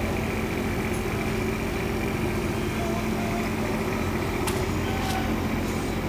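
Steady engine hum with a faint high whine, and two light clicks toward the end.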